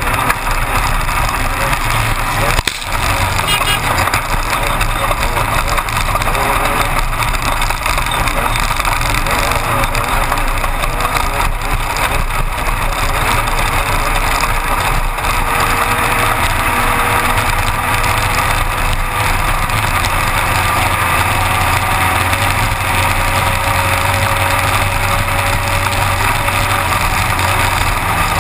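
Class 1-1600 desert race buggy heard from inside the car, its air-cooled VW 1600 engine running steadily under heavy wind and chassis noise, with a few brief knocks.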